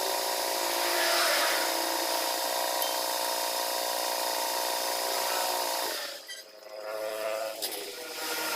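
A power tool's motor running steadily with a whine, cutting off about six seconds in, then running again briefly in short spurts.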